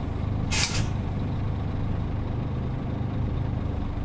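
Scania P360 dump truck's diesel engine running steadily, with one short, sharp hiss of compressed air from the air brakes about half a second in.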